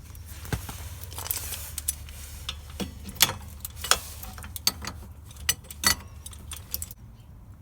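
Metal tools and parts being handled at the rear wheel hub: irregular clinks and clicks, a few of them sharper, about three and four seconds in.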